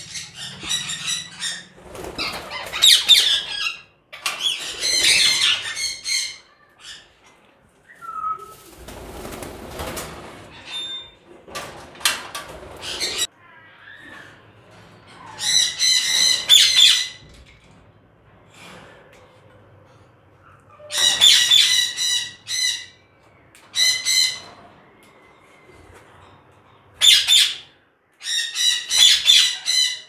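Ringneck parakeets squawking in repeated bouts of harsh, rapidly pulsing screeches, about seven bouts. Between them there are rustling and cage-handling noises.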